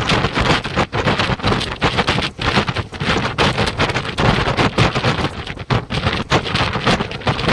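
Wind buffeting a microphone held out of a moving express train's window, in irregular gusts over the train's running noise on the track.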